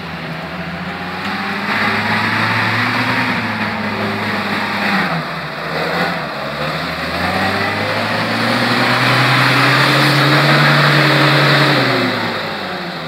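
UAZ-469 off-roader's engine revving hard under load as it drives through deep mud: the revs climb, ease off about five seconds in, then rise again to their highest and drop near the end.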